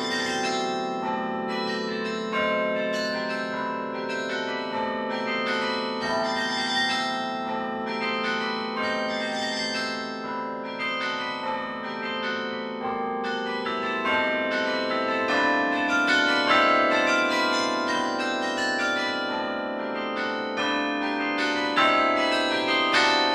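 Carillon bells played from the baton keyboard: a running melody of many quick notes over low bells that keep ringing underneath.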